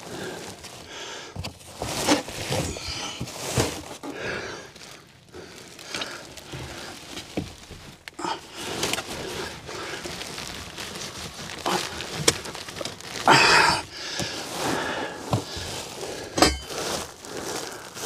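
Rustling, scraping and scattered knocks from a person crawling and working in a cramped attic among foil-wrapped ducts and metal conduit, with a louder rustle about 13 seconds in and bouts of heavy breathing, the huffing and puffing of the crawl.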